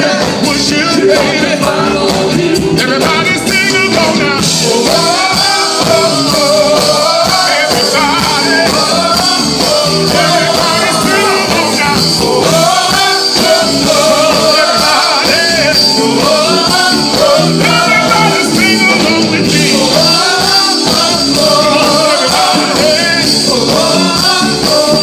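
Live soul band playing loud through a PA: several male singers trading lead and backing vocals over electric guitar and drums with a steady beat.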